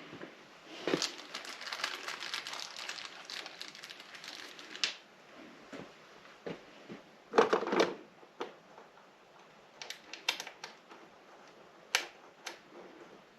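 Hands handling monitor-mount hardware and the monitor's plastic housing: a busy run of small clicks and rustling, a louder clatter of knocks midway, then a few sharp separate clicks.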